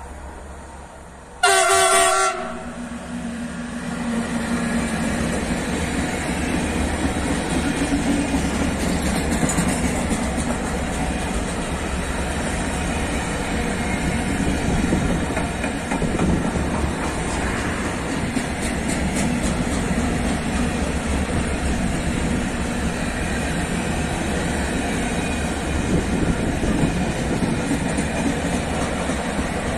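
An electric locomotive gives one short horn blast about a second and a half in. Then a long freight train of covered hopper wagons rolls past close by, with a steady rumble and wheel noise on the rails.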